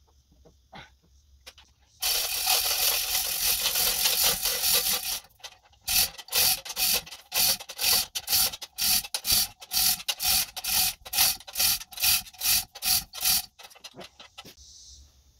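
Manual chain hoist being hauled hand over hand to lift the front of a zero-turn mower. Its chain rattles through the block, first in one continuous run of about three seconds, then in regular pulls about two a second.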